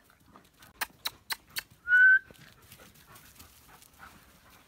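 Briard puppies at play: four quick sharp clicks about a quarter-second apart, then a short, high-pitched puppy yelp rising slightly in pitch, the loudest sound.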